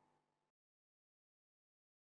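Near silence. The faint tail of a fading sound with a few steady tones stops abruptly about half a second in, leaving complete digital silence.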